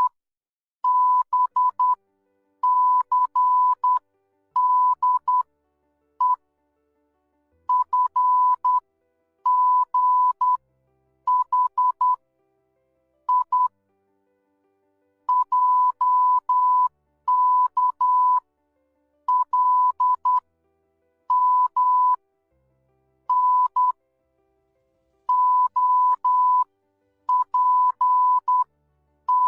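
Morse code sent as a single steady beep, keyed on and off into short and long tones (dots and dashes) in quick groups separated by brief silent gaps.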